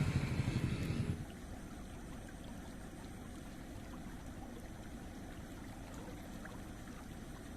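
A loud low rumble stops abruptly about a second in. After it comes the steady rush of water flowing in an irrigation channel.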